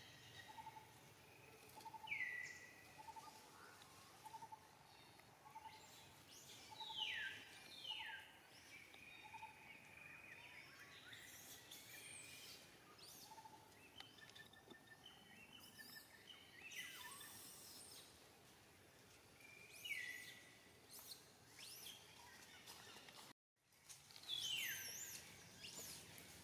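Short high-pitched animal squeals, each falling sharply in pitch, heard about five times. For the first part they sit over a soft chirp that repeats at an even pace. The sound drops out briefly near the end.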